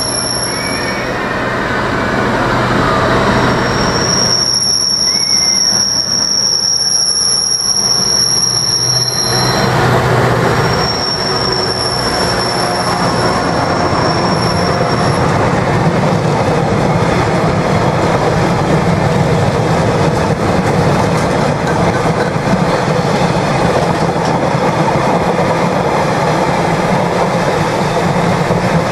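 Class 59 diesel locomotive passing at the head of a freight train, its engine a steady low hum while high-pitched wheel squeal comes and goes. Then a long, continuous rumble and clatter as a rake of Hanson JHA aggregate hopper wagons rolls by.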